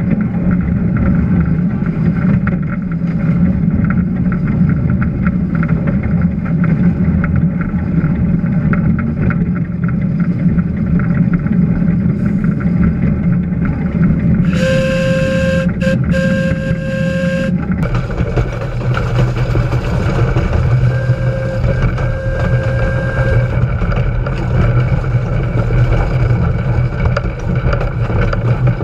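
Small steam locomotive running, heard close up from on board, with a steady rumble and clatter. About halfway through, its steam whistle blows for about three seconds in short blasts with a hiss of steam, and it sounds again more faintly a few seconds later.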